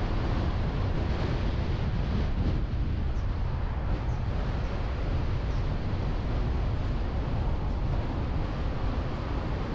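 Steady low rumble of wind buffeting a car-mounted GoPro microphone, mixed with the road noise of a car driving at speed.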